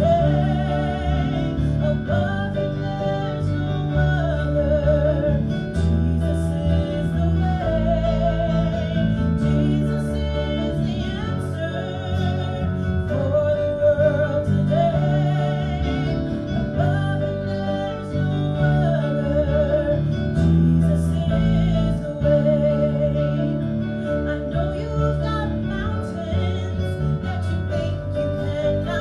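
Worship song: a singer holding long notes with vibrato over acoustic guitar and steady low accompaniment.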